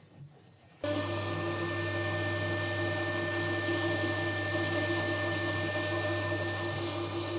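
Metal lathe switched on about a second in and then running steadily, a motor hum with a steady whine over it, and a few light ticks midway.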